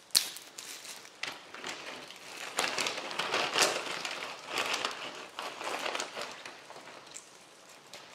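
Plastic baggies crinkling and granola rustling as it is portioned into a bag, in uneven bursts, with a sharp click just after the start.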